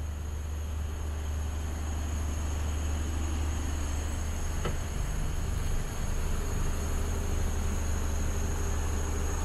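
Mercedes Actros truck's diesel engine idling, a steady low hum heard from inside the cab, with a single click a little before halfway.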